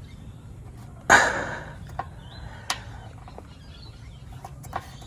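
Faint clicks and handling noise from hands working the squeeze clip of a plastic wiring connector on the tailgate buzzer behind the rear bumper, with one louder, short rustling burst about a second in.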